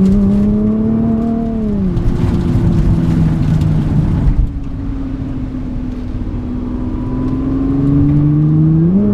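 2017 Nissan GT-R's twin-turbo V6 heard from inside the cabin while driving. The engine note climbs, drops sharply about two seconds in as the dual-clutch gearbox shifts up, and eases off about four and a half seconds in. It then rises slowly again and jumps up quickly near the end, as on a downshift.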